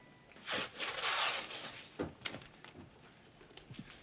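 Paper handled on a clipboard: two short rustles, then a few light clicks.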